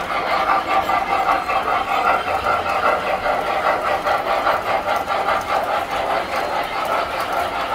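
Tinplate toy trains running on a model railroad layout: a steady mechanical clatter and hum of wheels and motors on the track.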